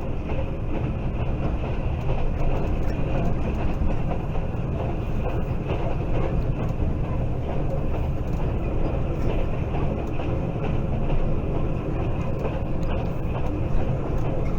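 Passenger train running along the track: a steady rumble of wheels on rails.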